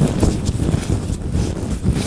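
Latex-gloved hands rubbing and stretching right against the microphone: a continuous, irregular crinkly rustle over a heavy low rumble.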